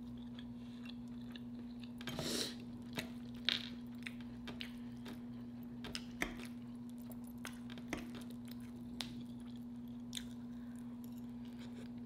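A person chewing food close to the microphone, with scattered wet clicks and smacks and a louder smack about two seconds in. A steady low hum runs underneath.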